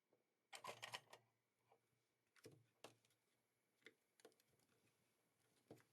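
Faint sharp clicks and taps of small parts being handled: a quick cluster about half a second in, then single clicks every second or so.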